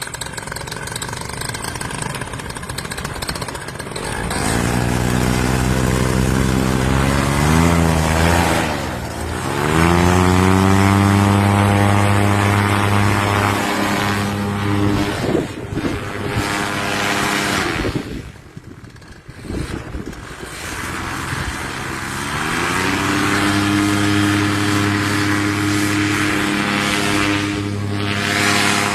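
Small propeller aircraft engine, with wind noise at first. About four seconds in the engine is throttled up; its pitch dips and recovers around nine seconds, then holds steady. It falls away around eighteen seconds and climbs back to a steady run a few seconds later.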